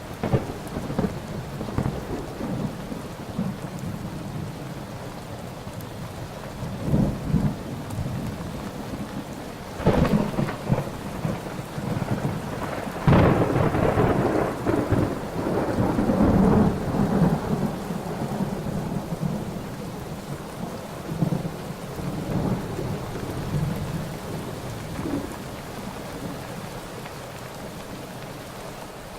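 Thunderstorm: steady rain with rolling thunder. Thunder cracks about a third of the way in and again, loudest, a little later, rumbling on for several seconds before fading back under the rain.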